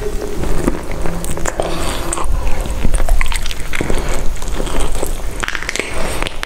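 Close-miked eating sounds: a person biting and chewing food, with many sharp crackles and crunchy clicks.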